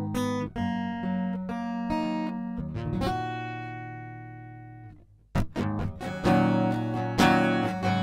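Ovation Custom Legend 1769 deep-bowl acoustic-electric guitar being played with its preamp EQ set flat, giving its stock tone. Picked notes and chords, then a chord left to ring and fade out, then strumming starts again with sharp attacks.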